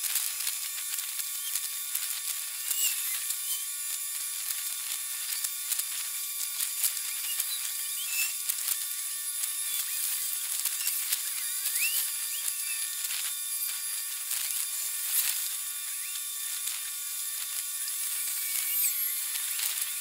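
Steady high-pitched hiss and electronic buzz with thin whine tones, peppered with quick clicks and chirps: ambient dockside audio sped up about forty times, so its low sounds are shifted up into a chattering whine.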